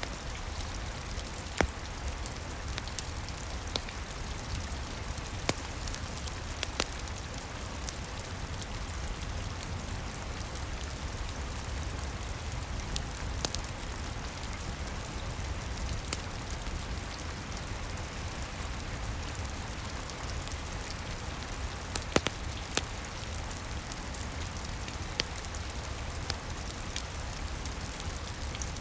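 Steady rain pattering, with a few sharp pops from a crackling log fire scattered through it.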